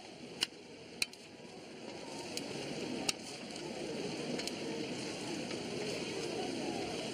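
Metal spatulas scraping and clinking against a large flat iron pan as saucy Korean fried chicken and garlic cloves are tossed, with a few sharp clinks in the first three seconds and a stirring, scraping noise that grows louder about two seconds in.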